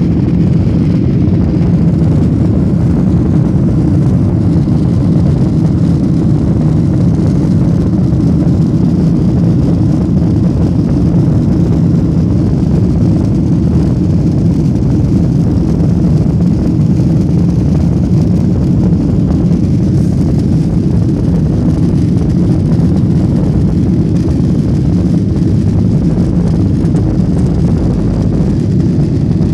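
Cabin noise inside a Boeing 737: the steady, low rumble of the jet engines and airframe as the airliner rolls along the runway.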